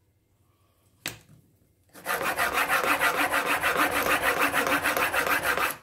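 Steel chisel bevel in a honing guide rubbed back and forth on a diamond sharpening plate in quick, even strokes, polishing the edge. It starts about two seconds in and stops just before the end, after a single click about a second in.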